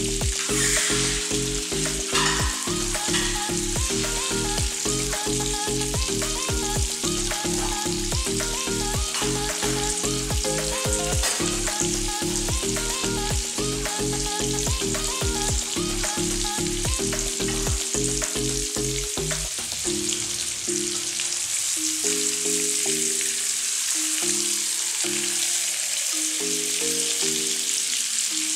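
Beef meatballs sizzling steadily as they fry in hot oil in a nonstick wok. A low background music track with a steady beat runs underneath, and its beat drops out about two-thirds of the way through.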